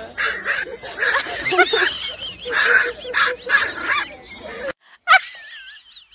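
A dog yipping and barking in short repeated calls; after a sudden break about five seconds in, a high wavering whine.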